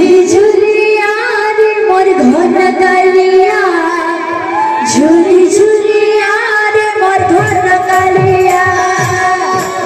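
A woman singing a kirtan devotional song through a microphone and PA, with steady instrumental accompaniment and occasional sharp percussion strokes.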